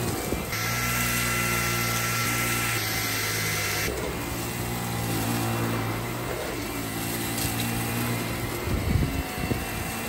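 Dyson Gen5 cordless stick vacuum running as it is pushed back and forth over a doormat, sucking up fine dirt. For about three seconds near the start a louder hiss with a high whine joins the steady motor hum.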